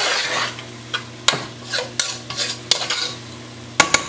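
Metal spoon stirring diced onions and bell peppers frying in a pot: irregular scrapes and knocks against the pot over a sizzle, with two sharp clicks near the end.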